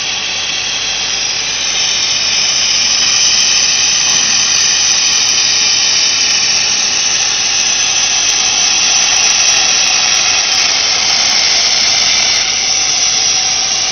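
A high-power laser welding machine running during pillow plate welding: a loud, steady rushing hiss that swells a little after about two seconds.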